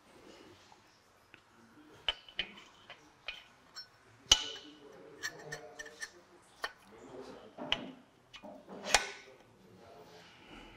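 Irregular light metallic clicks and clinks of rocker arms being fitted onto an oiled rocker shaft in a cylinder head, with the sharpest clicks about four and nine seconds in.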